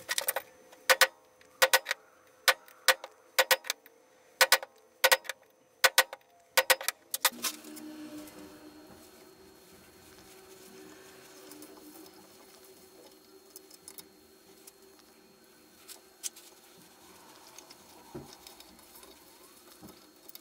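Steel tools and a steel square-tube workpiece clinking sharply on the bench and vise, one or two clinks a second with a short metallic ring. After about seven seconds it goes quiet, leaving only the faint scraping of a hand tap being turned to cut a thread in the steel tube held in the vise.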